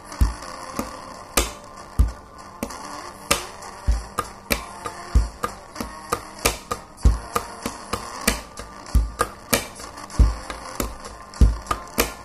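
Pen tapping: plastic pens drummed on a wooden tabletop in a fast, steady beat, heavier low thumps on the main beats with quicker, sharper clicks in between.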